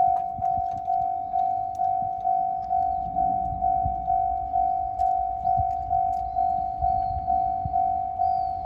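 Japanese level crossing's electronic warning bell ringing steadily, one tone repeated a little over twice a second: the crossing is activated because a train is approaching.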